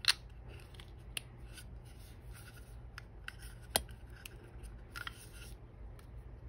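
Faint rustling of protective stickers being peeled off wireless earbuds, with small sharp plastic clicks as the earbuds and charging case are handled: one near the start, one about a second in, one near four seconds in and one at the end.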